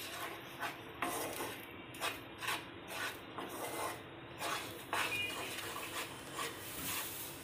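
Wooden spatula stirring and scraping a thick milk-powder, ghee and sugar mixture around a nonstick kadhai in repeated strokes, roughly one or two a second. The mixture is kept moving so it does not stick to the pan as it thickens.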